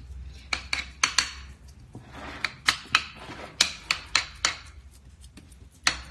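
A kitchen utensil tapping and scraping against a glass baking dish while ground meat is pressed flat in it: about a dozen sharp, irregular clicks, some followed by a short scrape.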